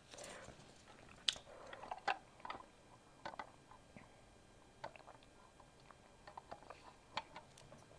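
Close-miked mouth sounds: scattered wet lip smacks and chewing clicks as fingers are licked, then sparser, quieter sips and swallows from a cup.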